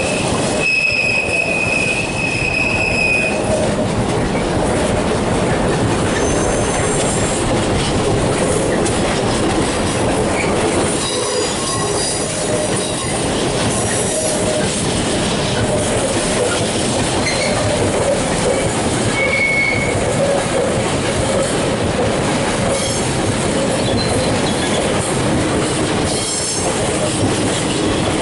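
Intermodal freight train of container flat wagons rolling through, the wagon wheels clattering on the rails with short spells of high-pitched wheel squeal, strongest in the first few seconds.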